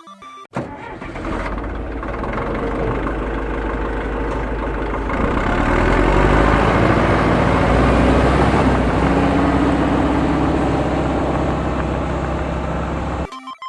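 An engine running steadily, growing louder about five seconds in, then cutting off abruptly near the end.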